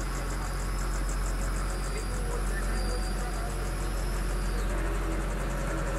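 Excavator's diesel engine running steadily with a low hum while it powers a hydraulic auger drive. A fast, even, high-pitched pulsing chirp runs over it and grows fainter about two-thirds of the way in.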